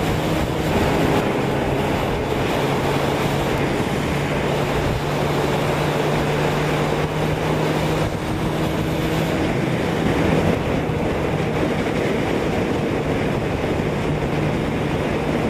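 Honda CBR600RR's inline-four engine at a steady cruise on the highway, under heavy wind noise on the camera microphone.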